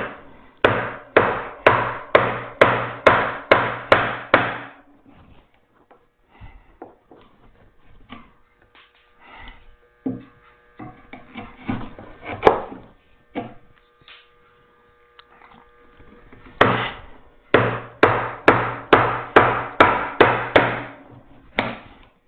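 Mallet striking a mortise chisel, chopping a mortise by hand in oak. Two runs of steady blows, about two to three a second, are separated by a long stretch of lighter, irregular taps and knocks.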